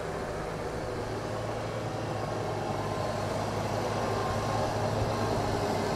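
Massey Ferguson tractor's diesel engine running steadily as it pulls a slurry tanker, slowly growing louder as it comes closer.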